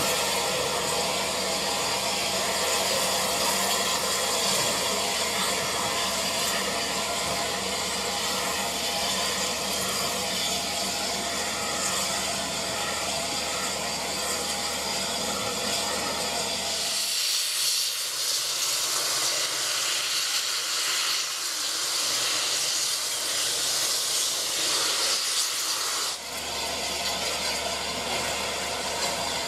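Steam hissing from a Southern Railway Bulleid Battle of Britain class steam locomotive. About two thirds of the way through, a stronger, higher hiss takes over as the engine blows out a big cloud of steam, easing off shortly before the end.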